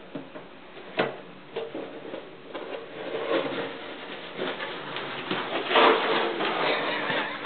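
Plastic cooler being pushed across a hardwood floor: a knock about a second in, then a continuous rattling scrape from about two and a half seconds in, loudest near six seconds.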